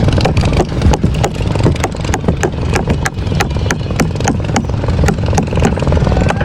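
A hand tool striking the boat again and again during repair, in sharp, even taps about three a second, over a steady low rumble.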